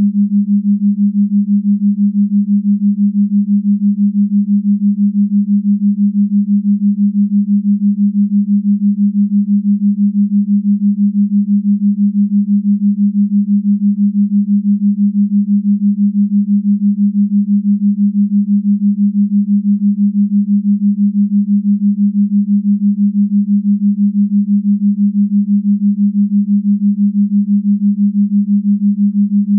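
Steady low electronic tone at one unchanging pitch, like a sine-wave drone, with a fast, even flutter in loudness.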